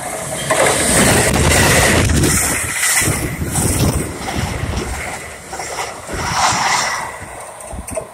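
NJ Transit commuter train of bilevel coaches passing close at speed: a loud rush of wheels on rail, loudest in the first three seconds as the coaches go by, easing off and swelling again briefly near the end.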